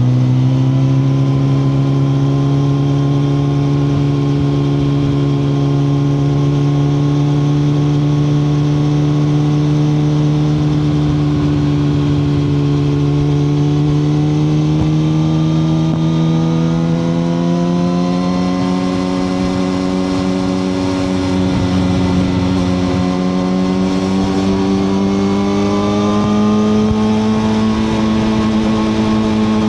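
A 2021 Suzuki GSX-R1000R's inline-four engine pulls in one gear, its pitch climbing slowly and steadily as the bike gains speed. There is a slight dip about two-thirds of the way through, with a steady rush of wind noise underneath.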